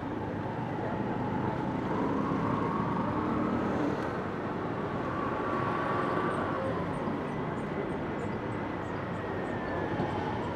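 City street ambience: a steady hum of vehicle noise, with a faint engine tone that rises a little about two seconds in and falls away about halfway through. Faint high chirps come in the second half.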